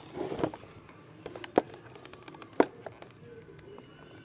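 Plastic toy-blaster packaging being cut and pulled loose with a box-cutter knife: two sharp clicks about a second apart amid lighter plastic ticking and rustling.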